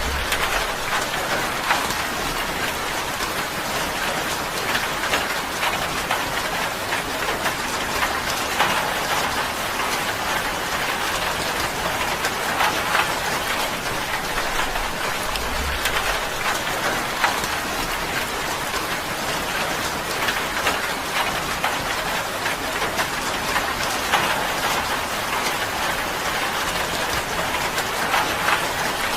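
Rain falling steadily on a tin roof: a dense, even patter of drops striking sheet metal.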